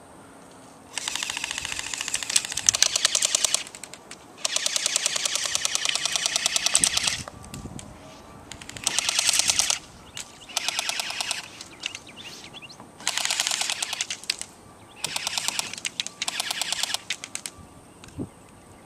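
Airsoft guns from an M249-versus-M4 skirmish firing repeated full-auto bursts: rapid, evenly spaced shots in about eight runs, the longest lasting two to three seconds, with short pauses between.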